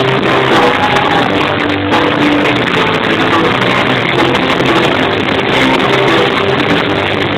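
Live band playing loudly, with electric guitars and a drum kit.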